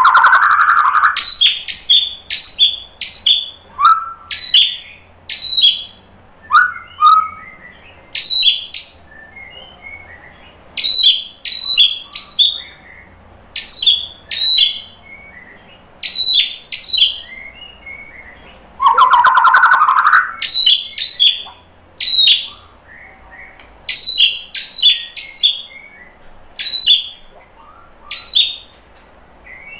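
White-rumped shama singing: a run of short, sharp high notes, one or two a second, broken by two longer, lower whistled phrases, one at the start and one about two-thirds of the way through.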